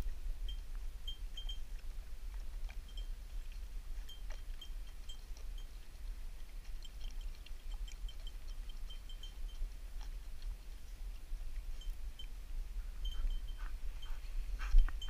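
Wind rumbling on the microphone while walking through dry field brush, with faint, high, jingling ticks that come and go and one brief bump near the end.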